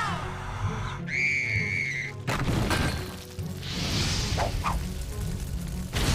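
Cartoon action music with sound effects. A high tone is held for about a second from one second in, a sharp crash comes a little after two seconds, and a noisy burst comes around four seconds, with another hit near the end.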